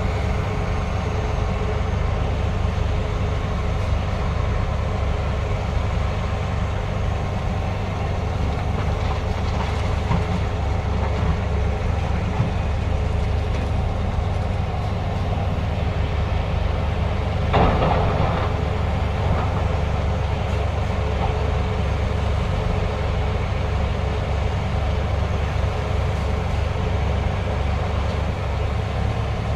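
Diesel engine of heavy construction machinery running steadily with a low drone. A brief, louder rush of noise comes about two-thirds of the way through.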